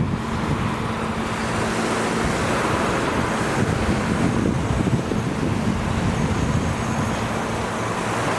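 Steady wash of ocean surf on the beach with wind buffeting the camera microphone, a continuous low rumble under the hiss of the waves.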